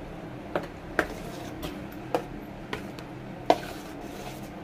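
Steel ladle stirring thick mashed toor dal in a stainless steel pot, clinking against the pot about six times at irregular intervals over a steady low hum.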